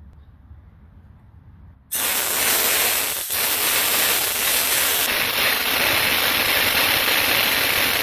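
Homemade CO2-powered BB gun firing a continuous burst: a loud, steady rushing hiss of gas starts suddenly about two seconds in and holds for about six seconds as the BBs stream out, then begins to fade right at the end.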